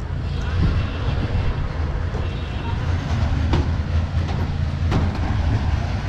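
Concrete mixer engine running steadily with a low drone during a concrete pour, with two sharp knocks in the second half.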